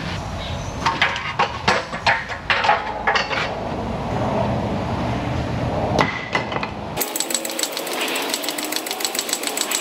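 Irregular metallic knocks and clanks of tools at work on the underside of a vehicle, then, after an abrupt cut about seven seconds in, an impact tool hammering in a fast, even rhythm.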